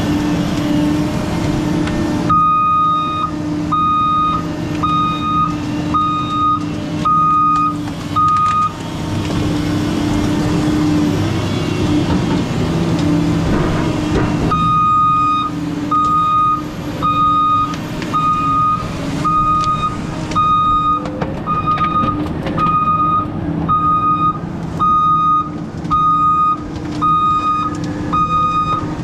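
Weiler S340 skidder's diesel engine running steadily while its backup alarm beeps about once a second as the machine reverses. The beeping stops for several seconds near the middle, then starts again.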